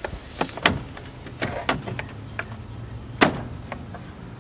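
Plastic door trim being handled and pushed into place on a car door: a series of sharp clicks and knocks, the loudest about three seconds in, over a low steady hum.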